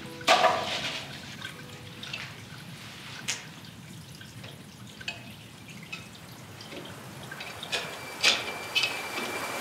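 Water dripping irregularly in an echoing space, with single drops landing every second or so; the loudest drops come just after the start and about 8 seconds in.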